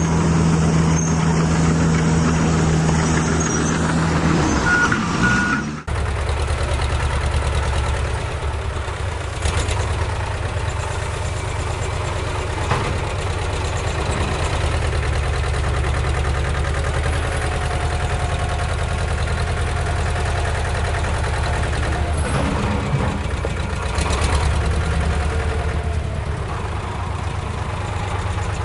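Heavy truck diesel engine running at a steady idle. It breaks off abruptly about six seconds in, and a similar engine hum starts again straight away at a slightly different pitch.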